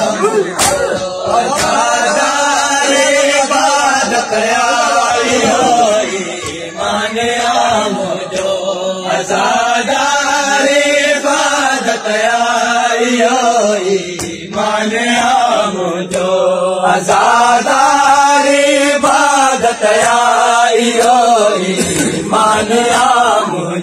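A group of men's voices chanting a noha, a Shia mourning lament, together in long sung phrases that rise and fall, with short breaks between phrases.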